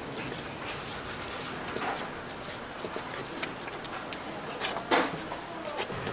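Scattered light clicks and knocks of handling at a busy food stall, with a louder knock about five seconds in.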